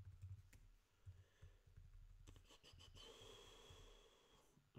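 Faint computer keyboard keystrokes: a few scattered clicks, then a quick run of them about halfway through. A soft hiss about a second and a half long follows.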